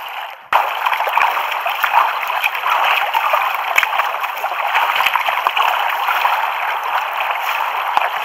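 Water rushing and splashing along a kayak's hull as it is paddled through choppy sea: a steady wash with small splashes from the paddle blades, briefly breaking off about half a second in.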